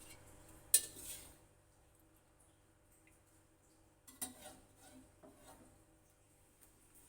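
Kitchen utensils clinking against dishware: one sharp clink a little under a second in, then a few lighter clatters between about four and five and a half seconds in.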